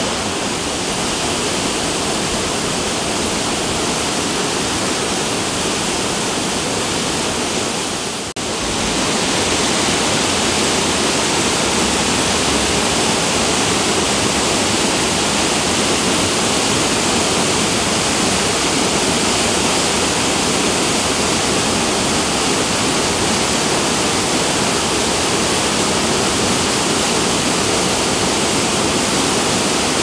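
Steady, loud rush of a fast-flowing, muddy river pouring over rocky rapids and a waterfall, with a momentary dip about eight seconds in.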